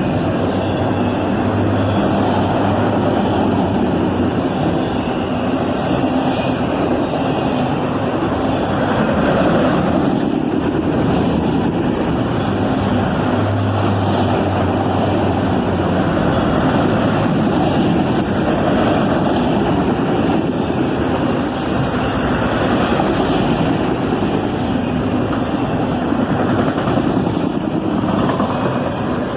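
Freight train passing at speed: a loud, steady rush and rumble of wheels on rail that fades near the end.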